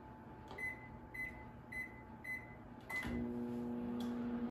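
Microwave oven keypad beeping five times, about half a second apart, as the cooking time is entered and started. About three seconds in, the oven starts running with a steady low hum.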